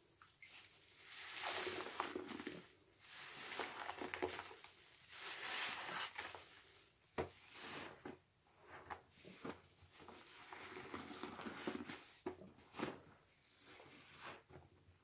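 A sponge soaked in sudsy washing machine liquid squeezed over and over, wet squelches about once every second or two with a few sharp pops of bursting bubbles.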